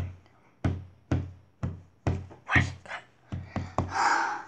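Hands drumming out a beat, sharp thumps about twice a second with a few quicker ones near the end, followed by a breathy hiss lasting about a second.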